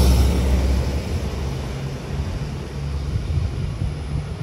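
Red DB Regio multiple-unit train running past close by: a low rumble that is loudest at the start and fades steadily as the train draws away.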